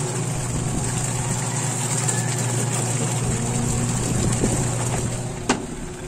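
Whirlpool top-load washing machine on its wash cycle: the motor turning the pulsator with a steady hum while the water churns and sloshes in the tub, driven by a manual wash timer fitted in place of its failed controller board. The hum stops about five seconds in, followed by a sharp click.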